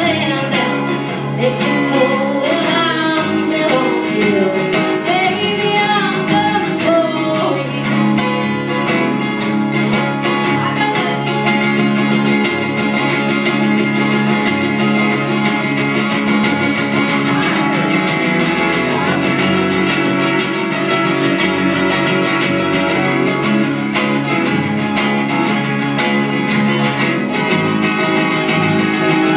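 Country song played on guitar and fiddle, with a woman singing over the first several seconds before the instruments carry on alone.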